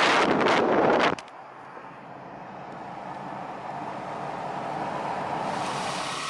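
Wind buffeting the microphone for about a second, cut off suddenly, then a faint steady vehicle hum that slowly grows louder.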